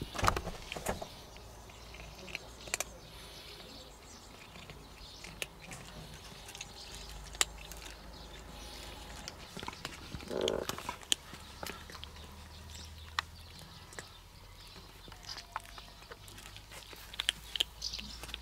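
Cats crunching dry kibble: scattered small crunches and clicks, growing denser near the end, with a short muffled sound about ten seconds in.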